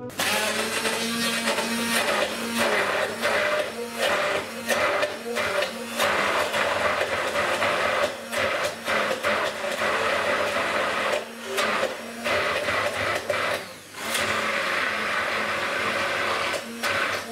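Electric stick blender running in a tall plastic beaker, puréeing baked eggplant pulp with olive oil. It runs steadily, with a few short dips where it lets up.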